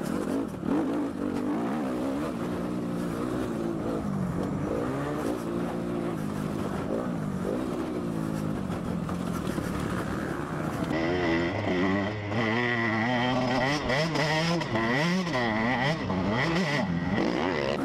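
Motocross bikes revving hard on a dirt track, pitch climbing and dropping with the gear changes: first the 2012 Suzuki RM-Z250's single-cylinder four-stroke. About two-thirds of the way in the sound switches to the Husqvarna TC 125's single-cylinder two-stroke, a higher, busier engine note with a steady whine.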